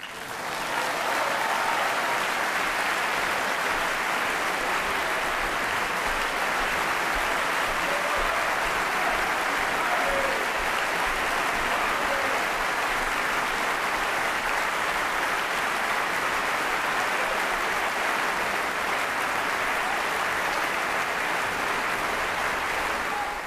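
Audience applauding, breaking out suddenly and then holding steady.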